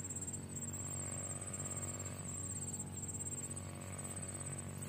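Insects chirring in a steady, finely pulsing high trill over a low steady hum.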